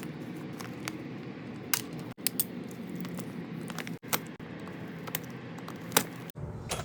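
Small metal parts of a Yankee push-drill screwdriver clinking and tapping as they are handled and set down: a few sharp separate clicks over steady low background noise.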